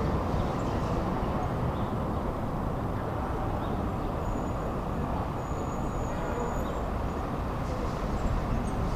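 Steady city street traffic noise, a continuous low, even hum of passing vehicles.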